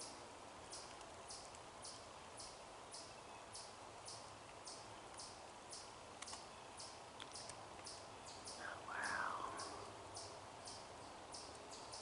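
Faint woodland animal calls: a steady series of short high-pitched chips, about two a second, with one louder rising-then-falling call about nine seconds in.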